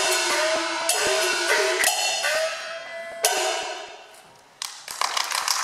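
Chinese opera percussion band accompanying a sword fight: rapid gong and cymbal strikes, the gongs' notes sliding up and down in pitch. A big crash about three seconds in dies away to a short lull, then a single stroke, and the beating starts again near the end.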